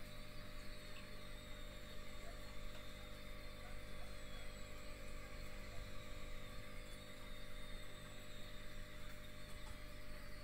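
Steady hum of running aquarium equipment with a faint, even hiss of moving water.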